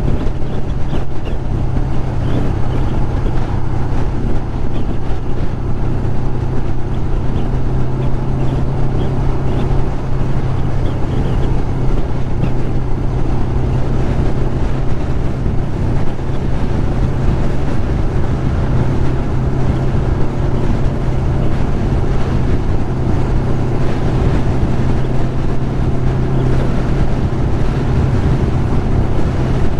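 1996 Kawasaki Ninja ZX-11's inline-four engine cruising at a steady highway speed, one even drone that neither rises nor falls, with wind and road noise over it.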